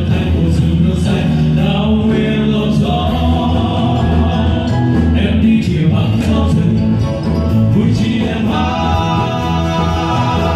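Song sung by several voices together over instrumental accompaniment, at a steady high level.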